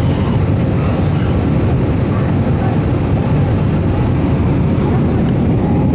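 Steady low rumble of an Airbus A321's jet engines and airflow heard inside the passenger cabin during the climb after takeoff.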